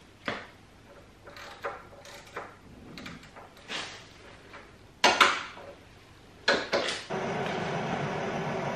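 Scattered clinks and knocks of tools on metal, with one loud metallic knock about five seconds in. From about seven seconds a steady electrical hum sets in: a Permig 195 MIG welder switched on and running, ready to weld a nut back onto a seized suspension bolt.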